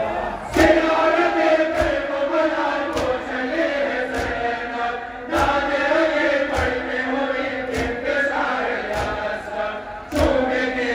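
Mourners chanting a noha together in a steady, repeated melody, with a regular thump about every second and a bit keeping the beat, as in matam.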